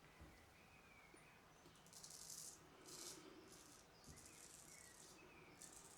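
Faint strokes of a straight razor scraping through lathered stubble: several short, raspy scrapes with brief pauses between them.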